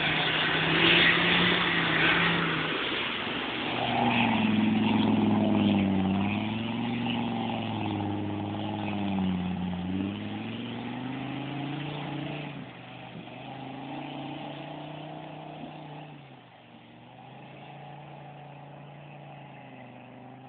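Land Rover Defender engine revving hard as it drives through a stream, its pitch rising and falling again and again, then settling lower and fainter over the last few seconds.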